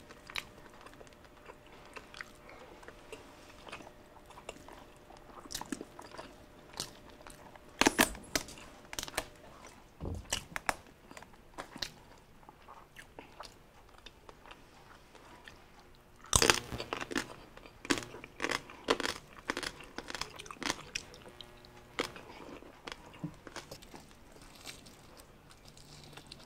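Close-miked eating of whole roast pig (lechon): hands tearing meat from the carcass and mouth chewing and crunching, a string of moist clicks and crackles. The loudest crunches come about eight seconds in and again around sixteen seconds in.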